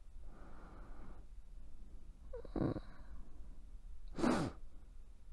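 A woman's slow, sleepy breathing close to the microphone, with a short soft hum about halfway through and a louder breathy sigh, falling in pitch, a little after four seconds.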